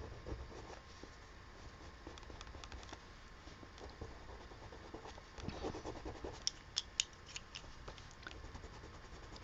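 Faint scratching of colored pencil strokes on paper, with a brief louder rustle about five and a half seconds in and a few sharp clicks just after.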